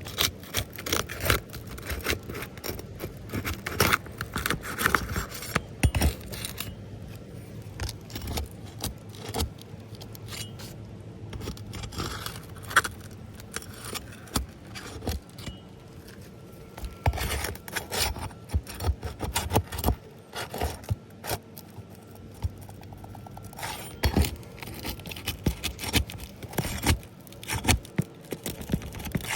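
Hand tools scraping and clicking irregularly against asphalt roof shingles during a shingle repair, with quieter stretches in the middle.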